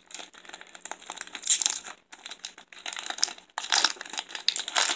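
Foil baseball card pack wrapper crinkling as it is torn open. It is loudest about a second and a half in and again through the last second or so.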